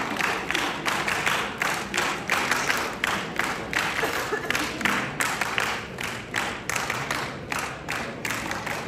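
Audience clapping, with separate claps coming several times a second.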